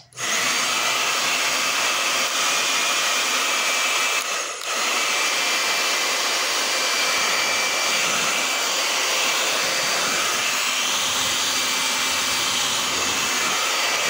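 Hand-held hair dryer, just repaired for running slow, switched on and running steadily: a loud rush of air with a faint high motor whine. It cuts in suddenly and dips briefly about four and a half seconds in.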